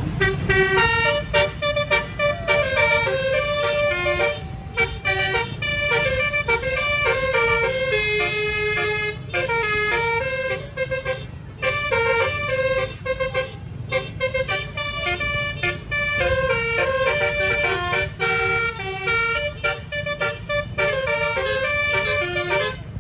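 Basuri multi-tone 'telolet' bus horn playing a tune, loud, its pitched notes stepping up and down quickly and continuously, over a steady low rumble.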